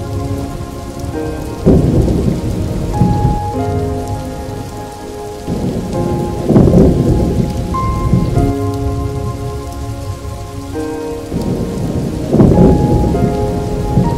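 Recorded rainstorm: steady rain with three long rolls of thunder, near the start, in the middle and near the end. A slow music track of held notes plays along with it.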